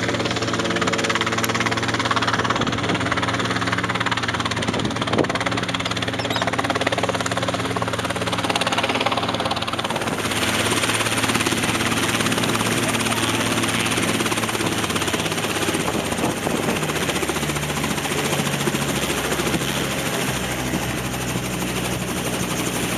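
Robinson R22 helicopter's piston engine and main rotor running steadily as it hovers low, then settles onto its skids and keeps running on the ground. The steady hum shifts in tone about ten seconds in.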